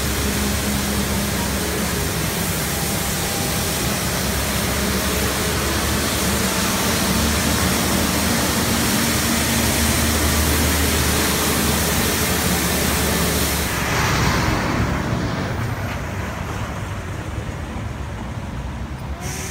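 Municipal street sweeper driving past: a loud, steady roar of engine and brush noise with a low hum. About 14 seconds in it cuts to quieter traffic noise that fades away.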